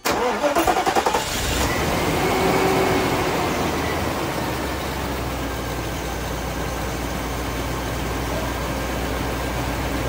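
Mercedes-Benz C126 coupe's V8 cranking for about a second, catching, its revs flaring briefly and then settling into a steady idle. It runs much smoother on a freshly fitted distributor cap and rotor, replaced to cure a misfire.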